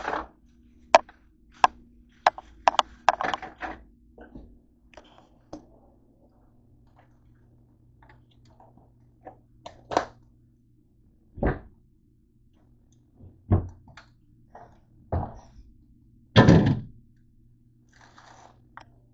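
Kitchen handling noises: a quick run of clicks and knocks, then several separate thuds as things are picked up and set down on the counter, the loudest about three seconds before the end, with some plastic bag crinkling. A faint steady hum sets in a few seconds in.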